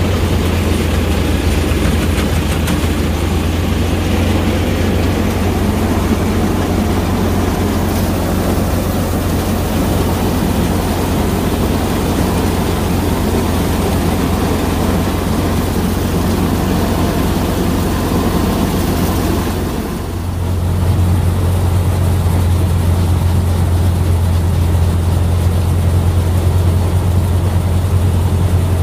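Swaraj 735 tractor's three-cylinder diesel engine running steadily at working speed, driving a grain thresher through its PTO shaft, with the thresher's whirring mixed in. About twenty seconds in the sound dips briefly and comes back with a stronger low hum.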